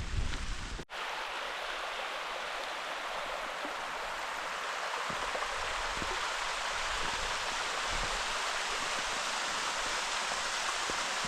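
Storm runoff cascading down a rocky canyon creek, a steady rushing hiss of water. The first second holds a low rumble before the water sound cuts in abruptly.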